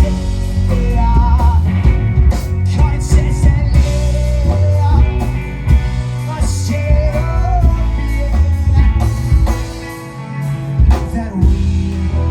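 Live band playing a groove-rock song: electric bass holding a strong low line under guitar, with a few cymbal crashes.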